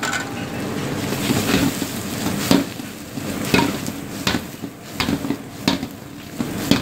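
Lamb and onions sizzling on high heat in an iron wok while the contents are stirred, the utensil scraping and knocking against the wok about once a second.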